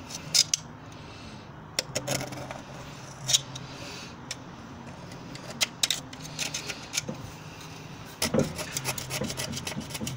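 Carbon deposits being scraped off the combustion chambers of a Morris Minor's cast-iron cylinder head with a small hand tool: metal scratching and rubbing on metal. The scrapes come in scattered sharp strokes at first, then turn into a rapid run of short strokes about eight seconds in.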